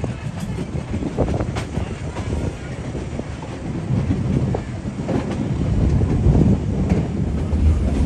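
Passenger train running along the track, heard from inside the carriage by an open window: a steady low rumble of the wheels with scattered clicks and clatter, growing louder over the last few seconds.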